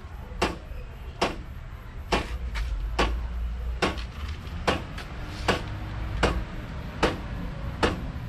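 Regular sharp clicks, about one a second, from hands working a syringe of brake oil into a motorcycle's hydraulic disc-brake caliper to load the brake line, over a steady low hum.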